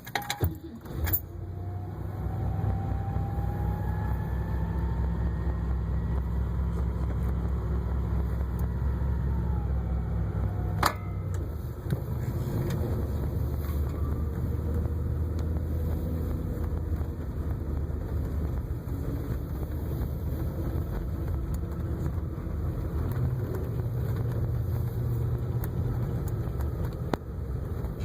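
1958 Cadillac's 365 V8 starting after a few clicks, catching about a second and a half in and then running steadily. A faint whine rises slowly and falls away over the first ten seconds, and a sharp click comes about eleven seconds in.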